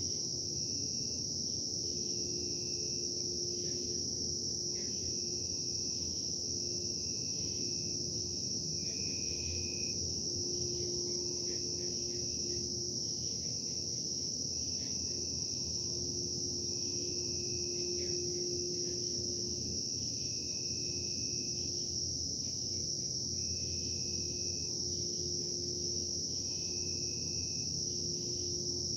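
A steady chorus of crickets, with brief higher tones every few seconds, over a continuous low hum and rumble. The uploader takes the hum for industrial production noise from a nearby plant.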